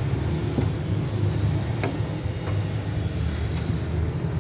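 Steady low rumble of an idling engine, with a few short sharp clicks.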